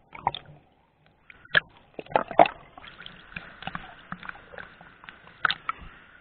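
Water sloshing and splashing in irregular strokes, loudest about two and a half seconds in.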